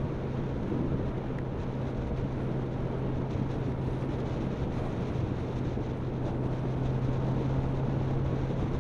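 Motorcycle engine running at a steady cruising speed, holding one constant low note, with wind noise on the microphone.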